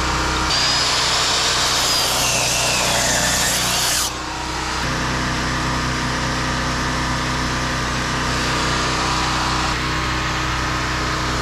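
A power tool runs for about three and a half seconds with a dipping whine, then cuts off abruptly. A steady engine hum runs underneath throughout.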